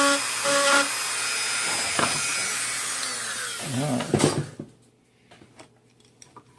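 Handheld high-speed rotary tool running steadily while carving fine detail into a design. It is switched off about four seconds in and winds down with a falling pitch, followed by a few faint clicks.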